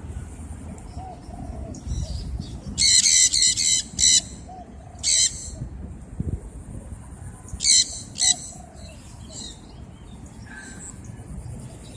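Sun conures giving loud, shrill screeching calls: a quick run of about five about three seconds in, one more a second later, and two close together near the end.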